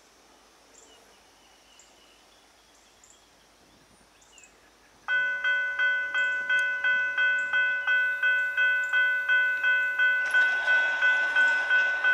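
Railroad grade crossing bell that starts suddenly about five seconds in and rings at about three strikes a second, warning of the approaching freight train. Near the end a loud hissing noise joins it.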